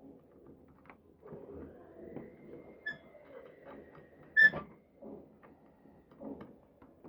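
Hands working on a portable bag closer sewing machine: scattered light clicks and knocks of metal parts and tools, with one sharp ringing metallic clink about four and a half seconds in.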